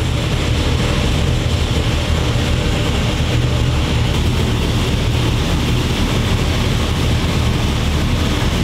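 Boosted LS V8 engine running steadily on an engine dyno, fitted with a very large camshaft.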